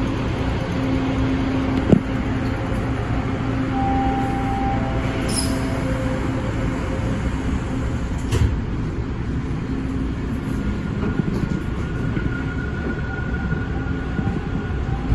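Toronto subway train running on open-air track, heard from inside the front car: a steady rumble of wheels on rails with a few faint steady tones over it. A sharp click about two seconds in and a smaller knock a little past eight seconds.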